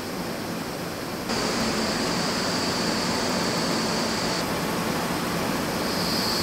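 Steady hissing machine noise from a factory engine test stand, where a BMW N62 V8 is being turned at about 850 rpm. It gets louder and brighter a little over a second in.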